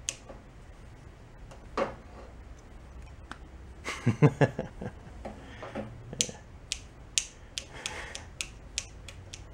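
Plastic clicks and knocks from a power cord's plug being handled and fitted to the power inlet of an ultrasonic cleaner's steel cabinet: a cluster of heavier knocks about four seconds in, then a string of light, sharp clicks.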